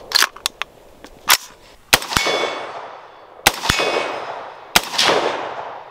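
Metallic clicks and a clack as an AR-15 pistol's side charging handle is worked to clear a jam. Then three shots about a second and a half apart, each followed a moment later by the ringing clang of a steel target being hit.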